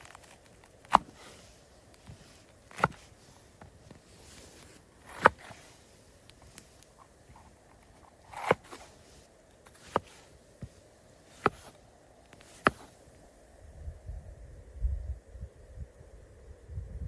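A series of about seven sharp knocks, one to three seconds apart, followed near the end by low rumbling.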